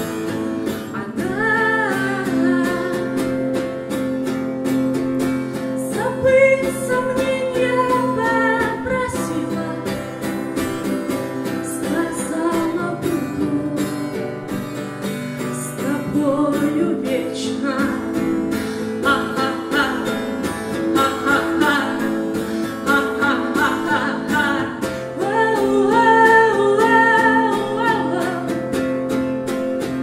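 A woman singing a song to her own strummed acoustic guitar.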